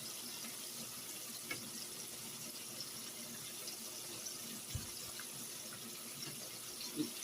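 Battered jumbo shrimp deep-frying in hot oil: a steady sizzling hiss with scattered small crackles. A dull knock comes a little under five seconds in.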